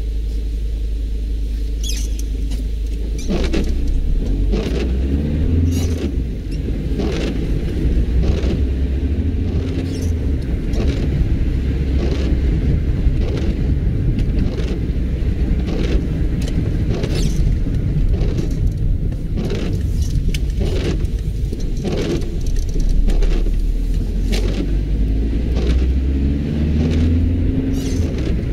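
Inside a car on the move: a steady low engine and road rumble, with the windscreen wipers sweeping back and forth in a regular rhythm, about one stroke a second.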